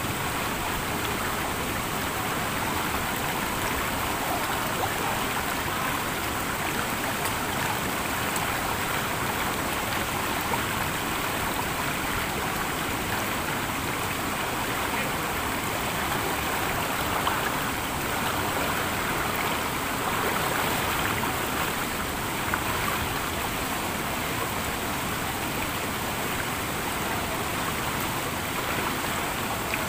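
Clear mountain stream running over rocks and through shallow pools, a steady rush and burble of water.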